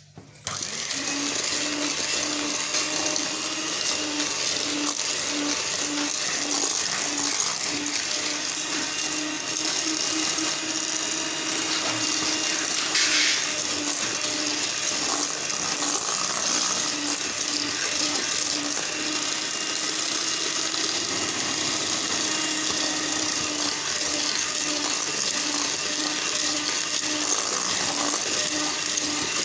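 Electric mixer running steadily at speed, beating cake batter with the eggs just added; it starts about half a second in.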